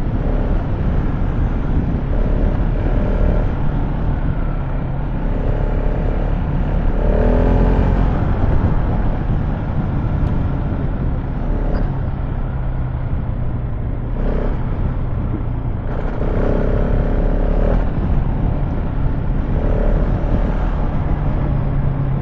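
KTM 690 Enduro R's single-cylinder engine running under way off-road, its revs rising and falling several times.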